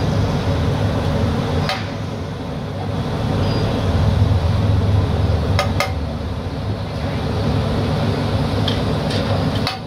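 Street-stall cooking: a few sharp metallic clinks of utensils on the pav bhaji griddle, one about two seconds in, two near the middle and several near the end, over a steady low rumble of street traffic.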